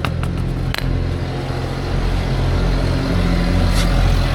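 A steady low mechanical drone with a few sharp metal clinks in the first second, from tools and parts being handled during scooter wheel-bearing removal.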